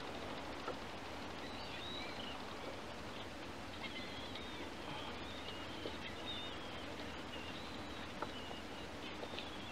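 Faint, wavering bird chirps come now and then over a steady outdoor background hiss from calm open water, with a few light clicks.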